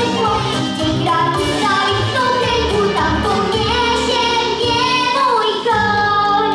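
A young girl singing a song into a microphone over instrumental backing music.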